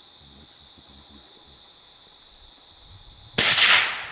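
A single rifle shot about three and a half seconds in, loud and sudden, dying away over about half a second; the shot misses the fallow deer. Before it, a steady high drone of insects.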